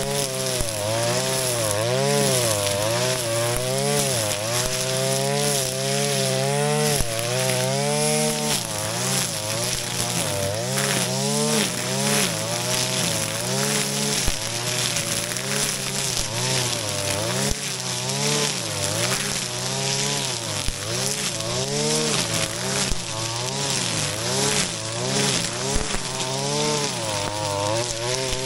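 Shindaiwa RK3026-PT 25.4 cc two-stroke brush cutter running while mowing tall grass. Its engine pitch rises and falls continuously as the throttle and cutting load change, over a hiss of grass being cut, with a few sharp ticks.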